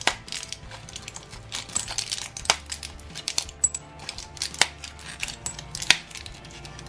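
Aspirin tablets pushed one by one through a foil blister pack, the foil crackling, and the tablets dropping with sharp clicks into a glass bowl.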